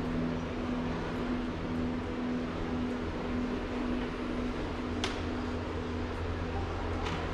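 Steady mechanical hum of a large shop's ventilation and air handling, with two sharp clicks about five seconds in and again near the end.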